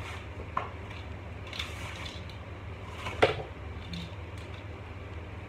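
Plastic clicks and rustling as a folding phone tripod is drawn out of its fabric pouch and handled, with one sharp click about three seconds in. A steady low hum runs underneath.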